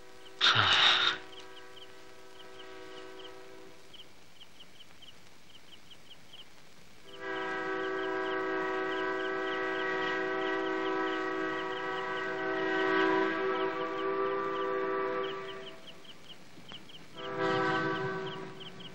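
An approaching train's horn sounds a long blast of about eight seconds, then a shorter blast near the end, over a regular chirping of crickets. A brief loud burst of noise comes about half a second in.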